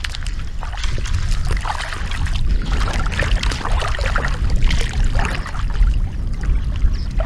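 Water splashing and trickling in irregular bursts over a steady low rumble of wind on the microphone.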